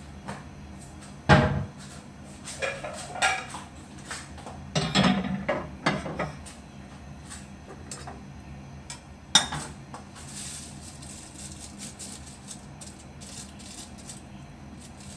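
Ceramic plates and cutlery clinking and clattering as plates are set down: sharp clinks about a second in, a cluster around five seconds in and another near nine seconds, with quieter clatter between.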